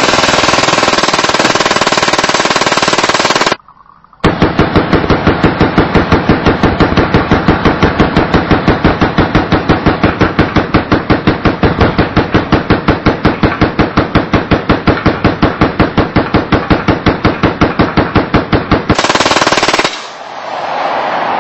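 Fully automatic Glock 17 pistol firing incendiary rounds. It fires a dense burst that stops about three and a half seconds in, then after a brief pause a long run of evenly spaced shots in quick succession, ending in another dense burst shortly before the end.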